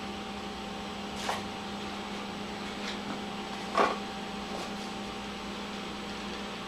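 Steady electrical hum in a small room, with a few light clicks and taps as small glass stones are picked up and handled on a wooden table; the loudest tap comes a little under four seconds in.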